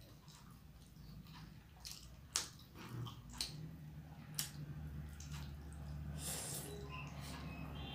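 Close-miked eating sounds: fingers squishing and mixing rice and curry, then chewing with mouth noises. Several sharp wet clicks come about a second apart near the middle.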